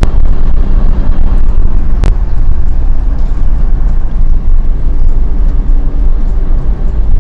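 Steady loud rumble of a moving vehicle's road and wind noise on the microphone, with two sharp clicks, one at the start and one about two seconds in.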